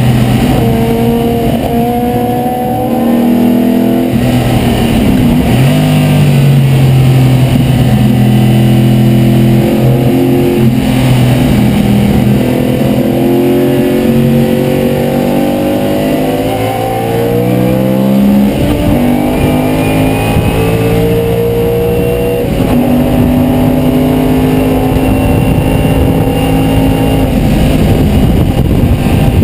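De Tomaso Pantera's V8 racing engine heard from inside the cockpit under hard acceleration. Its pitch climbs through each gear and drops back at every shift, eases briefly a little past the middle, then pulls hard again.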